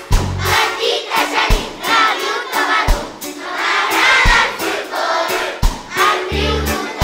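Large children's choir singing a Catalan children's song with instrumental backing: a low beat about every second and a half, and low bass notes.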